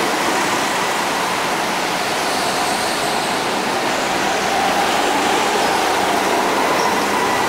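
Go-karts running laps: a steady, dense rush of motor and tyre noise with a faint wavering whine, a little louder in the second half as a kart passes close.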